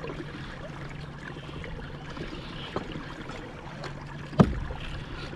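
Water sloshing around a kayak, under a faint steady low hum. A light click comes a little before the three-second mark, and a louder knock about four and a half seconds in.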